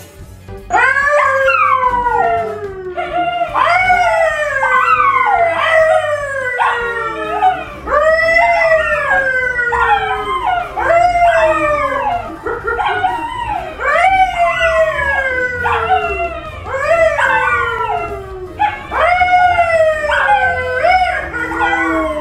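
A pale Labrador-type dog and a brown poodle howling together with a man who howls along. The howls start about a second in and come one after another, each a long call that falls in pitch, with the voices overlapping.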